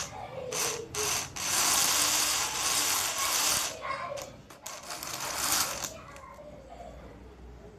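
Small electric motor of a homemade cigarette-filling machine running in several stop-start bursts as it packs tobacco into a paper cigarette tube. It goes quiet about six seconds in.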